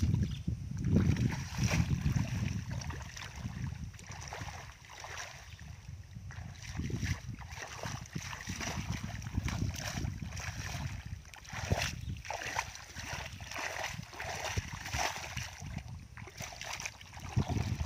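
Bare feet sloshing and squelching step by step through shallow muddy water, with wind rumbling on the microphone at times.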